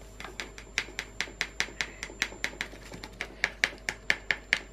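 A paper sachet of instant pudding powder being tapped and flicked over a mug to shake the powder out: a quick run of light, sharp taps about four or five a second.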